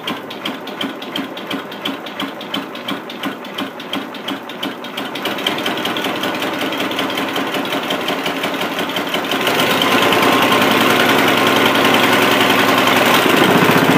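Homemade three-arm compressed-air motor running on air, beating about three times a second at first. It speeds up until the beats run together into a steady rush, louder from about ten seconds in.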